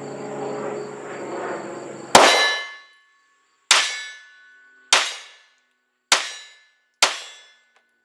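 Five 9mm shots from a CZ P10 C pistol, slow aimed fire, the first about two seconds in and the rest about a second apart. Each shot is followed by the ringing clang of a hit on a steel target.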